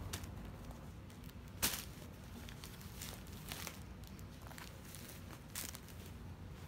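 Soft rustling of T-shirts and plastic packaging being handled, with a few sharper crinkles; the loudest is about one and a half seconds in, another near the end.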